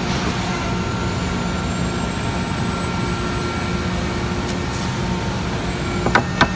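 Steady mechanical drone of shop machinery. About six seconds in come two sharp hammer taps at the edge of a wooden door panel, working the panel's beading.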